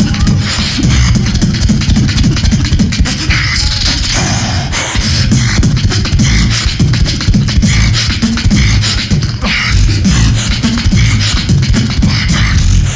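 Live beatboxing into a handheld microphone, amplified through a stage PA: fast, dense vocal percussion with deep bass hits under a rapid stream of clicks.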